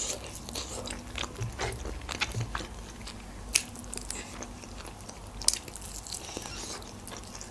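Mouth sounds of eating a grilled chicken drumstick: biting and chewing meat off the bone, with scattered short clicks. A sharper click comes about halfway through and another about three quarters through.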